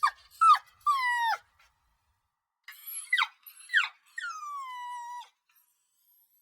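Puppy crying: high-pitched whining cries that each slide down in pitch. Three come in quick succession, then after a short pause two sharp yelps and a longer drawn-out whine.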